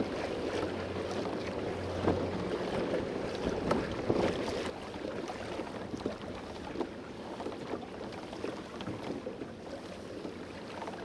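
Choppy water slapping and splashing against the hull of a Hobie Pro Angler 12 kayak under way, with wind rushing over the microphone. It is a steady wash peppered with small sharp splashes, a little louder in the first half.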